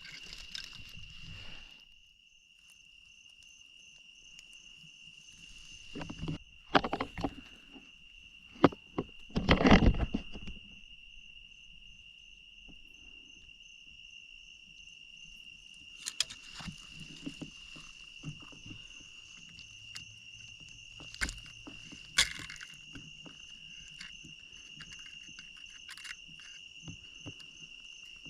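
Insects trilling steadily at one high pitch, with intermittent rustling and crackling of brush and leaves as someone pushes through thick cover on foot. The loudest brush noise comes about ten seconds in, with a few sharp snaps of twigs later on.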